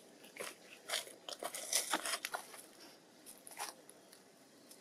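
Dry leaf litter crunching and crackling under a long-tailed macaque's hands and feet as it walks and sits down: a cluster of sharp crunches in the first two seconds or so, then one more about three and a half seconds in.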